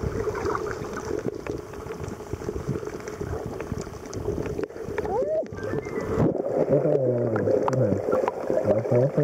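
Muffled underwater sound of water moving around a submerged camera, a rumbling wash with small clicks. About six seconds in, muffled wavering pitched sounds join it.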